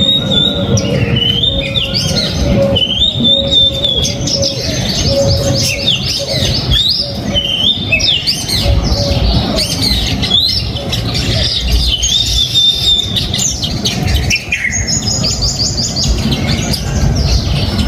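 A flock of small backyard birds chirping and calling together, many overlapping high chirps and trills with some harsher squawks, over a steady low rumble.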